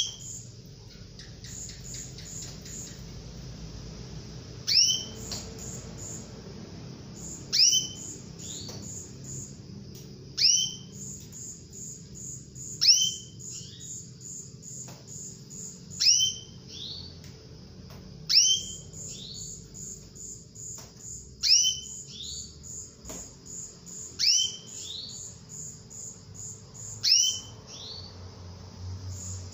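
Female domestic canary calling: a short, quick upward-sweeping call, repeated about nine times at roughly three-second intervals, each with a fainter lower note. Between the calls, faint rapid high chirps run on.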